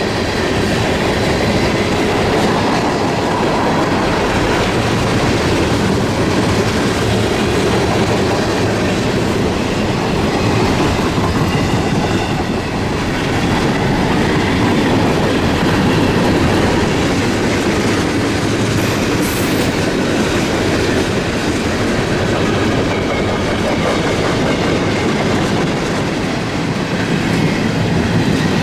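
Freight cars of a long manifest and autorack train rolling past at close range, with a steady rumble and the clickety-clack of wheels over the rail joints.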